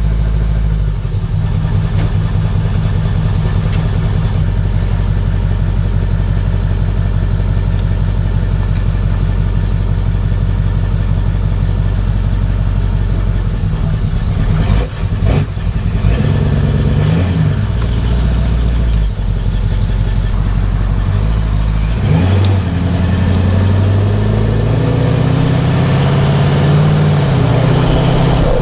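A vehicle engine and exhaust running steadily, with the engine note changing around the middle and again near the end.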